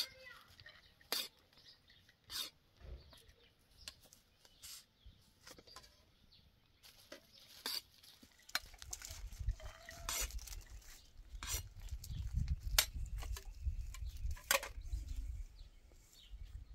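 Metal spoon clinking and scraping against ceramic plates as rice is served out, a string of sharp separate clicks. From about halfway in, a low rumble runs under the clinks.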